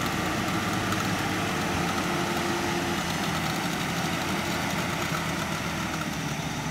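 Off-road 4x4's engine running steadily without revving as the vehicle crawls slowly through a muddy rut.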